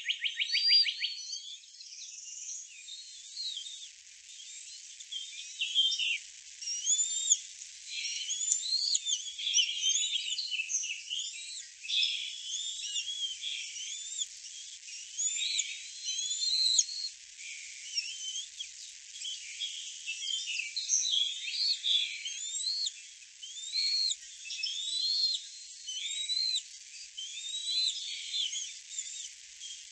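Outdoor chorus of wild songbirds: many overlapping high chirps and whistled phrases. A fast, even trill ends about a second in.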